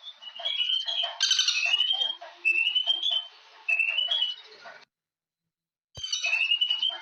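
Birds chirping in repeated short rising phrases, with a brief rattle of sharp clicks about a second in. About five seconds in the sound cuts out completely for a second, then comes back with a click and the chirping goes on.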